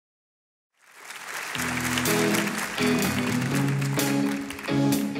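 Audience applause fades in, and about a second and a half in a live pop band starts a song's intro under it: guitar-led chords with sharp hits about once a second.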